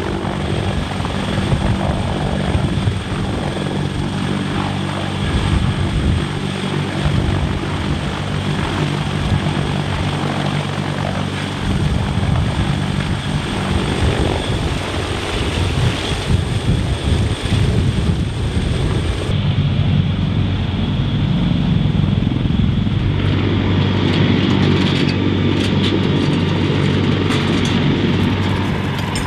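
CH-53K King Stallion heavy-lift helicopter hovering with an external load, its three turboshaft engines and rotors running loud and steady with rotor-wash noise. The sound changes in character about two-thirds of the way through.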